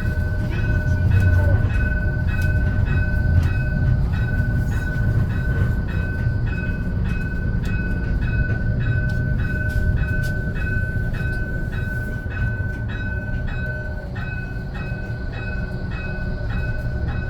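Modern tram running between stops, heard from inside the car: a steady low rumble from the wheels and running gear with a constant high-pitched whine. A regular ticking about twice a second runs through it.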